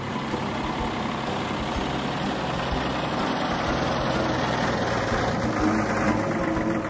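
Heavy truck engine running steadily, with a deep rumble under a dense mechanical noise.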